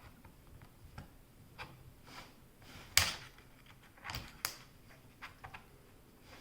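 Plastic prying tool working the bottom cover of a Dell G3 3590 laptop loose: scattered sharp plastic clicks and snaps as the cover's clips release, the loudest about three seconds in and two more close together about a second later.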